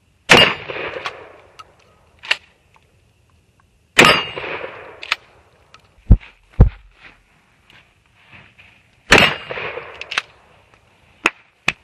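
Shotgun fired three times, each blast about four to five seconds apart and followed by a rolling echo of about a second. Several short sharp clicks fall between the shots.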